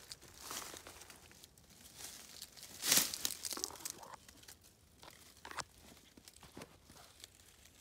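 Footsteps in dry fallen leaves on a forest floor: irregular rustling and crunching, with one louder crunch about three seconds in.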